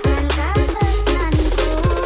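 Background music: electronic dance track with a steady bass-drum beat and a melody line.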